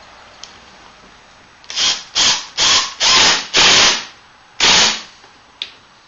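Milwaukee cordless impact driver running pocket screws through a skirt board into a desk leg. It runs in six short spurts from about two seconds in to about five seconds, the middle two longest, then there is one click.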